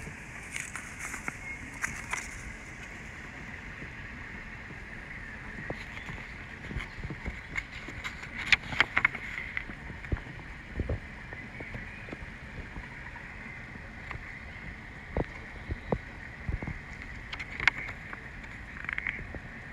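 Paper instruction leaflet rustling and crackling in short bursts as it is handled and unfolded, over a steady background hiss.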